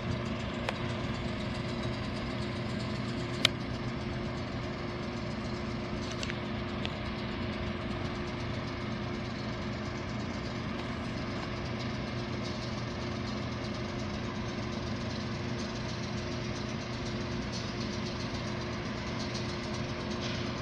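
Diesel-electric locomotives idling, a steady low engine drone with an unchanging hum. A single sharp click a few seconds in.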